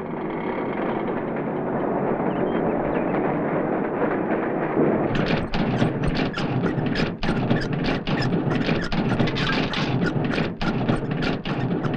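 Printing press running, with a rapid, regular mechanical clacking that starts about five seconds in over a steady rumble.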